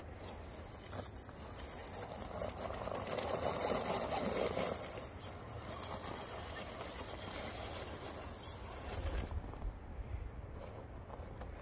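1/10-scale RC rock crawler on an Injora full-metal chassis with a forward-mounted gearbox, driving slowly over dirt and rock: its electric drivetrain running, with tyres scraping and crunching on stone. The sound grows louder about three to five seconds in, with a few small knocks later.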